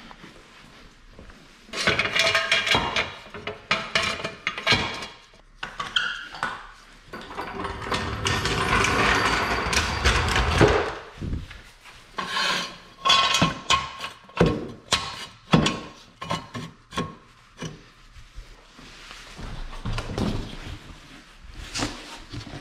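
Scraping, rubbing and clanking of a floor jack and jack stands being dragged and set in place on a concrete garage floor, with long scrapes and many separate knocks.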